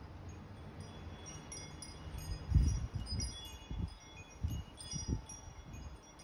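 Light tinkling chime tones, many short high rings overlapping throughout. Several dull low thumps sound between about two and a half and five seconds in, the first one the loudest.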